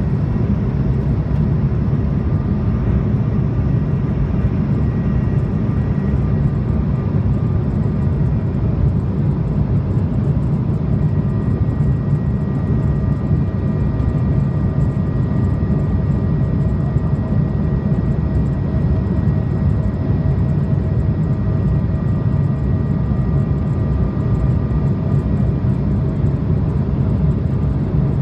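Cabin noise inside an Embraer 170 climbing after takeoff: the steady roar of its GE CF34 turbofans and the rush of air, with a few faint steady whining tones on top.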